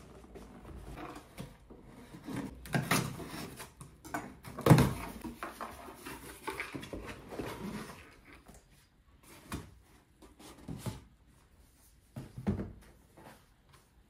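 Cardboard shipping boxes being handled and opened: flaps and packing rustling and scraping, with sharp knocks, loudest about five seconds in. Later come a few separate knocks as books are lifted out and set down.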